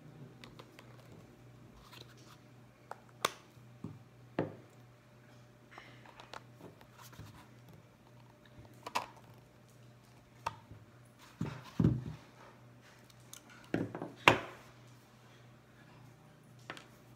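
Scattered clicks and knocks of needle-nose pliers gripping, twisting and pulling the metal pin of a broken high-heel tip out of the heel, with two louder knocks in the second half. A steady low hum runs underneath.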